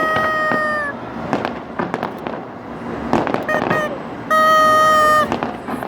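Fireworks bursting and crackling, with scattered sharp bangs. Two loud, steady horn blasts of about a second each stand out above them, one at the start and one about four seconds in.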